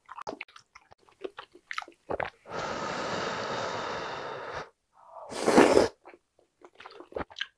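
Close-miked eating sounds: soft wet chewing clicks, then a steady breathy blowing for about two seconds to cool a ladle of hot beef short-rib broth, then one loud slurp of the broth from the ladle, followed by more chewing.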